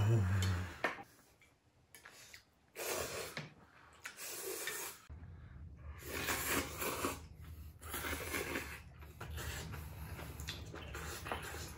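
Close-miked eating sounds of ramen: noodles slurped in a series of short noisy pulls, one every second or two.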